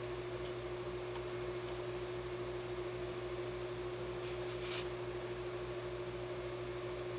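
Amana room air conditioner running: a steady mechanical hum with a constant mid-pitched tone over a low pulsing drone. A brief hiss sounds about four and a half seconds in.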